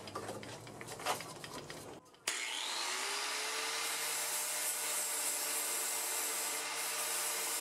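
About two seconds in, an angle grinder with an abrasive disc switches on, its whine rising as it spins up, then runs steadily while grinding the weld bead on a welded steel bandsaw blade flush.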